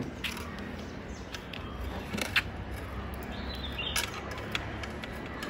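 Bicycle chain being handled and threaded onto the smallest chainring: scattered light clicks and rattles of the chain links over a steady low background hum.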